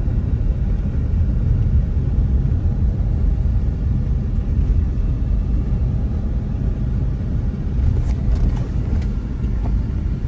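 Car driving along a road, a steady low rumble of engine and tyre noise heard from inside the cabin, with a few sharp knocks or rattles about eight seconds in.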